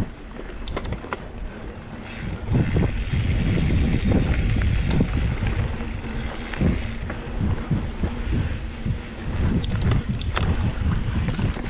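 Wind buffeting the microphone over irregular low thuds and crunches on a dirt trail, with a few sharp clicks near the start and near the end.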